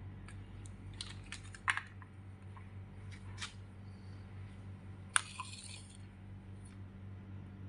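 Small clicks and taps of lab equipment being handled, with a few light clicks about a second in. About five seconds in comes a sharp tap and a brief scrape as a plastic beaker is set down on the bench under the pH electrode. A steady low hum sits underneath.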